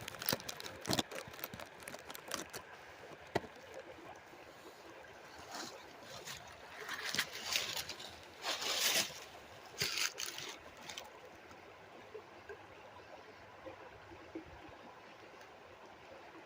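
Steady rush of flowing water, with scattered sharp clicks and knocks in the first few seconds and louder rustling bursts around the middle.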